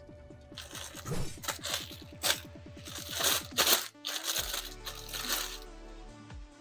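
Clear plastic packaging crinkling and tearing in a series of rustles as a fabric cushion cover is pulled out of it, stopping about four seconds in. Background music plays throughout.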